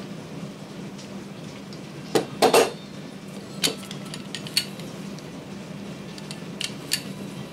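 Metal clinks and knocks from a small cast-metal railroad truck for a 5-inch gauge ride-on railway as it is handled and turned over, its wheelsets, bolster and side frames shifting and knocking while their movement and bearings are checked. The loudest knocks come about two seconds in, with lighter clicks scattered after, over a steady low hum.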